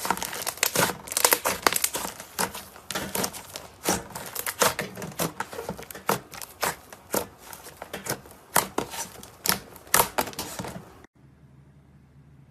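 Slime being squeezed and stretched by hand, making dense, irregular crackles and pops that stop abruptly near the end.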